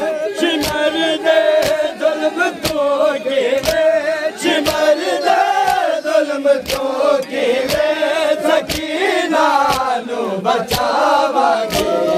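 A group of men chanting a noha (Shia lament) in unison, with sharp hand slaps on the chest about once a second: matam keeping time with the chant.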